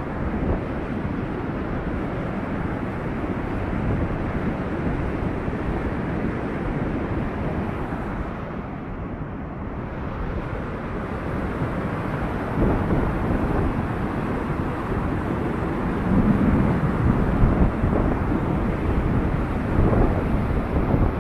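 Floodwater rushing in a steady, rumbling rush of noise, with wind buffeting the microphone and swelling louder now and then.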